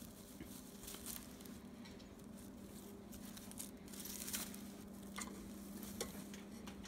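Faint rustling and crackling of straw bedding as a rabbit moves through it and climbs onto a wooden nesting box, with a low steady hum underneath.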